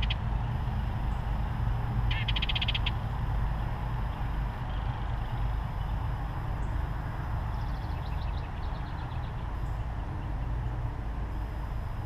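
Wild songbirds calling in the distance: a rapid high trill about two seconds in and a falling run of quick notes around eight seconds in, over a steady low rumble.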